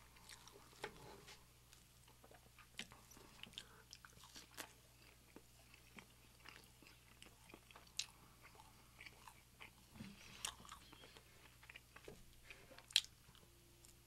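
Close-miked chewing of food: irregular small wet clicks and crackles from the mouth, with a sharper click near the end.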